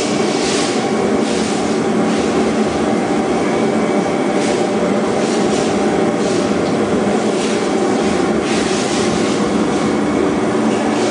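Foam contour cutting machine running: a steady mechanical drone with several constant hum tones and irregular faint hissing swishes.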